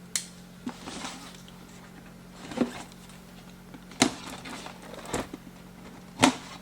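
Cardboard product box being handled and opened: a string of separate scrapes, taps and rustles, the sharpest about four seconds in and near the end, over a steady low hum.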